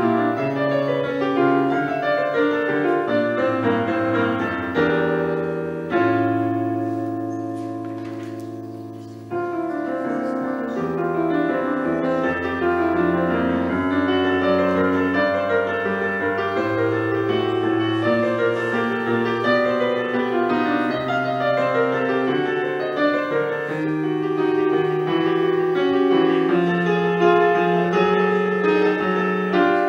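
Stage keyboard played with a piano sound: flowing chords and running notes. About six seconds in, one chord is struck and left to die away for some three seconds before the playing goes on.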